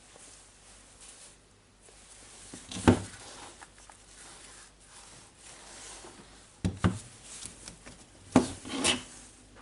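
Handling noises of objects on a hard surface: rubbing and scraping, broken by sharp knocks, the loudest about three seconds in, a pair near seven seconds and two more toward the end.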